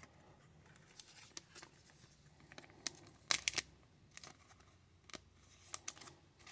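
2021 Topps Holiday baseball cards being flipped through by hand: faint, scattered slides and snaps of card stock, with a few sharper ones about three and a half seconds in.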